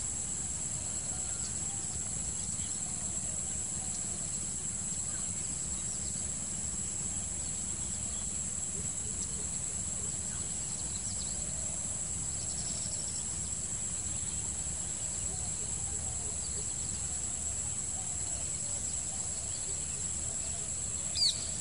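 Steady high-pitched drone of insects over a low background rumble, with faint scattered bird chirps. Near the end, one short, sharp bird call falling in pitch stands out above the drone.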